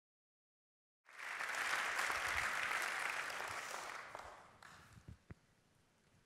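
Audience applauding, cutting in suddenly about a second in and dying away after a few seconds, followed by a couple of faint knocks.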